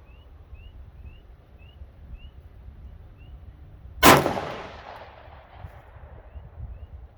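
A single 9mm pistol shot from a Glock 19 Gen 5 about four seconds in, with a short echo trailing off. Wind rumbles on the microphone throughout.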